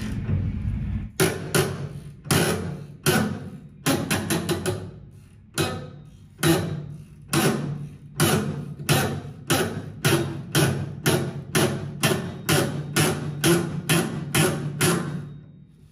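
A series of sharp, ringing percussive hits, unevenly spaced at first, then settling into a steady beat of about two a second. A low rumble stops suddenly about a second in, just before the hits begin.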